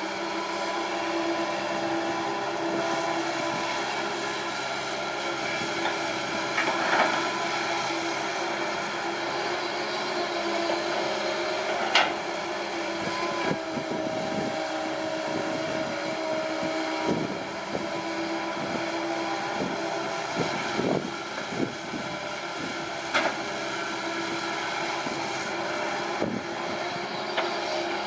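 Komatsu PC160 excavator's diesel engine running steadily while the bucket digs, with scraping and crunching of soil through the middle and a few sharp clanks, the loudest about twelve seconds in.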